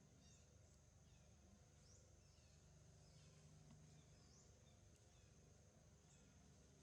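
Faint outdoor ambience: a bird giving short high chirps about once a second over a steady high insect-like hiss.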